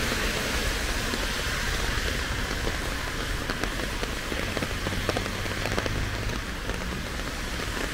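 Typhoon rain falling steadily, with many close drops ticking through the hiss.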